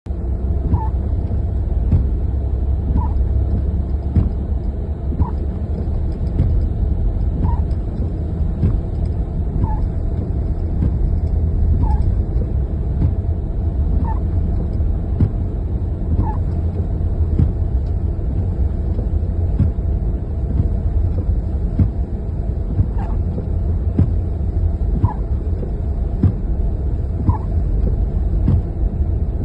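Car driving on a snowy road, a steady low road-and-engine rumble, with a short squeak repeating about every two seconds, dropping out for a few seconds past the middle.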